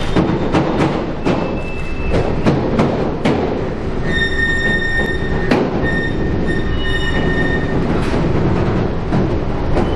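A train moving through the station, its wheels giving a steady rumble with irregular sharp clicks over the track. About four seconds in, a high-pitched wheel squeal sets in and lasts about four seconds.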